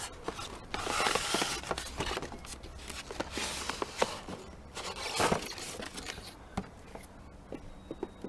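A cardboard toy box being opened by hand: its flaps pulled back and the packing slid out, with rustling, scraping and a few light knocks.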